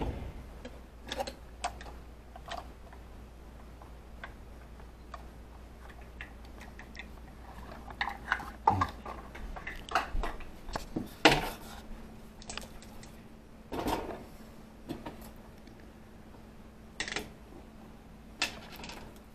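Dishes and utensils being handled while cooking: scattered clinks and knocks, bunched in the middle of the stretch, with a few more spaced out near the end. A faint steady hum starts about halfway through.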